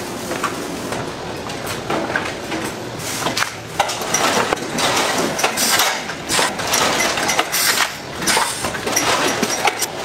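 Food-packing line machinery running, with irregular clicks and clinks over a steady noise; it grows louder about three seconds in.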